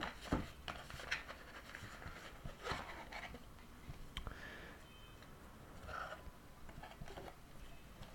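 Faint rustling and scattered light taps and clicks of packaging being handled while a product box is unpacked.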